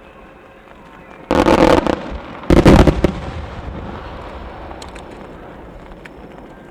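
Two heavy aerial firework shell bursts about a second apart, the second the louder, each trailing off in a long rolling echo, with a few faint crackles afterwards.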